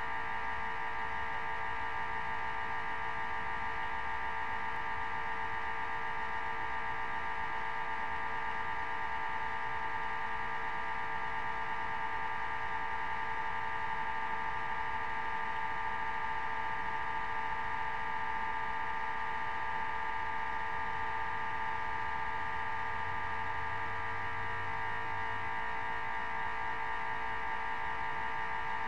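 A steady, unchanging buzzing hum made of several high tones.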